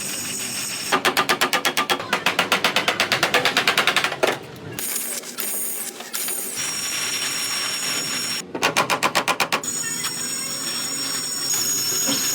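Metal bodywork tool noise: two runs of rapid, even metallic strikes at about ten a second, one of about three seconds and a shorter one, over a steady high whine.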